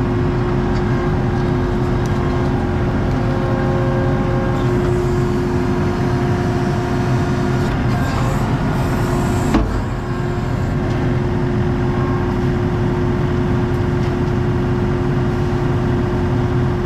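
ASV skid steer's diesel engine running steadily, heard from inside the operator's cab, with a steady tone over the engine noise. There is one sharp knock about ten seconds in.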